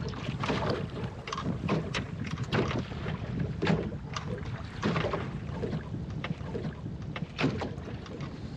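Choppy water slapping irregularly against the plywood hull of a small sailing skiff, several slaps a second, over a steady noise of wind on the microphone.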